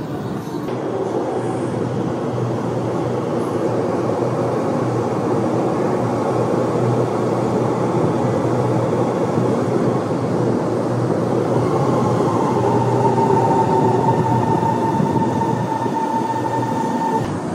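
Shanghai Metro subway train running, a steady rumble that grows slightly louder. A steady high whine joins it about twelve seconds in and holds for about five seconds.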